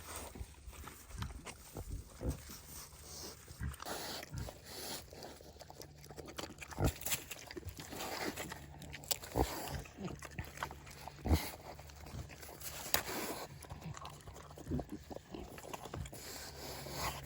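Mini pig eating a piece of pumpkin: irregular chomping and smacking with occasional grunts.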